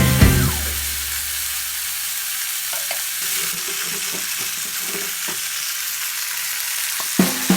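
Food frying in hot oil in a pan, a steady sizzle, with a few faint knocks of a utensil.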